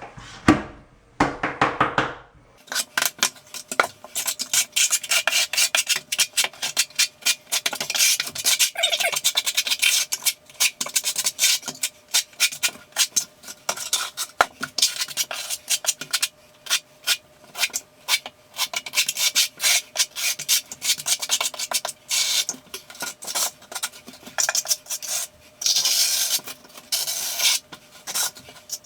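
Steel notched trowel scraping thinset mortar across a shower floor's mortar bed, in quick repeated strokes that start about two seconds in, over a faint steady hum.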